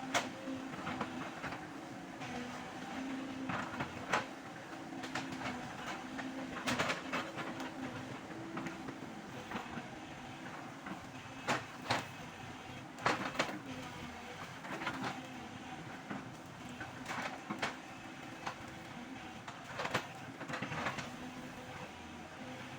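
Excavator's diesel engine running steadily under work, with sharp knocks and clanks every few seconds as the machine works.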